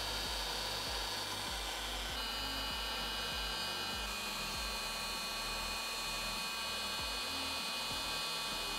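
Electric heat gun running steadily, blowing hot air into the air compressor's cylinder head to dry it: a steady rush of air with a fan-motor whine and hum. The whine shifts slightly in pitch about two seconds in.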